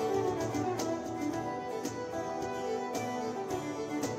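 Live fiddle tune on violin, accompanied by acoustic guitar and a cajón keeping a steady beat.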